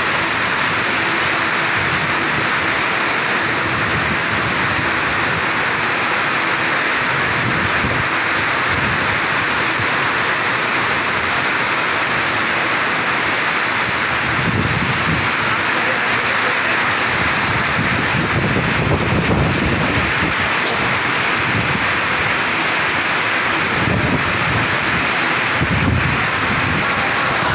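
Heavy rain pouring down in a steady, dense hiss, with irregular low rumbles that come and go, more of them in the second half.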